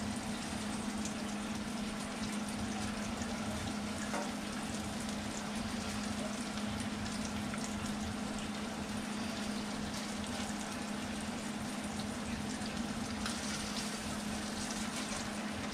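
Small pieces of mangrove snapper fillet sizzling in a frying pan: a steady frying hiss with faint scattered crackles, over a steady low hum.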